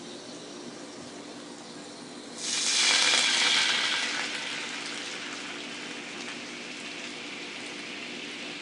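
Steady background noise with a low hum, then about two and a half seconds in a loud hiss swells up and tapers off over the next couple of seconds.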